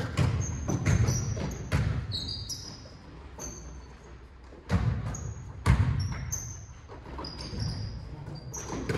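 Basketball bouncing on a hardwood gym floor in irregular thuds, the two loudest about five and six seconds in, echoing in the large gym. Short high sneaker squeaks on the hardwood come through between the bounces.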